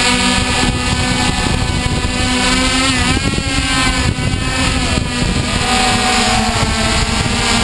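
Mini hexacopter drone's electric motors and propellers whining steadily, heard close on its onboard camera, with wind noise. The pitch wavers about three seconds in and again near the end as the motors change speed.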